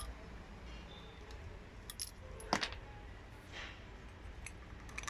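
A few light metallic clicks and clinks, the loudest about two and a half seconds in, over a low steady hum: small metal parts or tools being handled.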